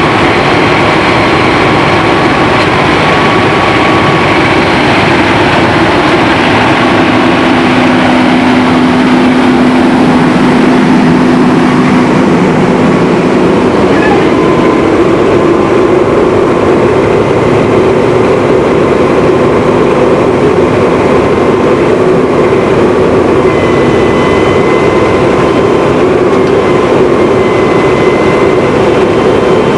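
Cat C13 diesel of a Freightliner M2 bucket truck running to drive the hydraulics while the hydraulic outriggers are worked: a loud steady mechanical drone with whining tones that come and go.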